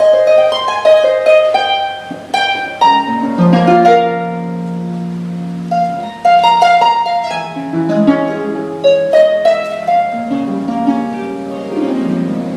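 Lyon & Healy Style 85 concert grand pedal harp playing: quick plucked figures over low notes left ringing, with a new phrase starting about six seconds in.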